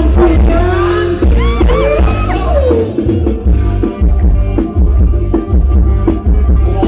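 Loud live Isan band music from a rot hae sound truck, with heavy bass and drums keeping a steady beat, picked up by a camera microphone. A melody line slides up and down in the first few seconds.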